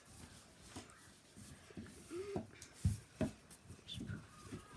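Faint rubbing and handling of Play-Doh modelling clay, with scattered small clicks and a few light knocks on the table.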